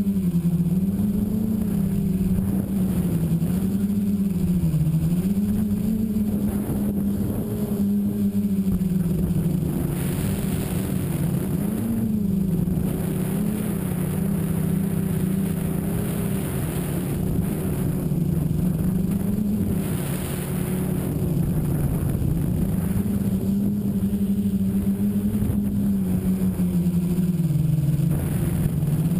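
Tricopter's electric motors and propellers buzzing in flight, the pitch rising and falling again and again as the throttle changes. A rushing hiss joins in about ten seconds in and again about twenty seconds in.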